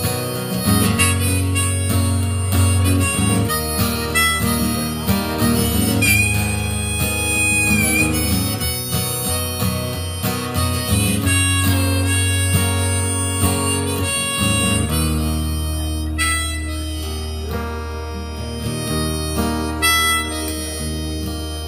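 Harmonica solo played from a neck rack over acoustic guitar accompaniment, with one long held note about six seconds in.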